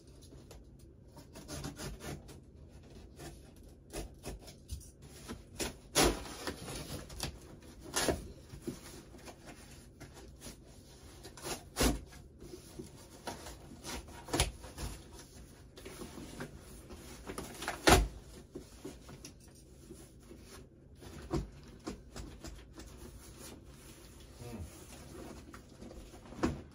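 Cardboard shipping box being pulled open and folded flat around a fabric carrying bag: rubbing and rustling, broken by a handful of sharp cardboard knocks and cracks. The loudest knock comes about two-thirds of the way through.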